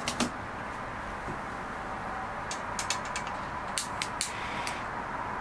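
Light, sharp clicks or taps of small hard objects: two right at the start, then a scattered run of them in the second half. Under them is a steady background hiss with a faint steady hum.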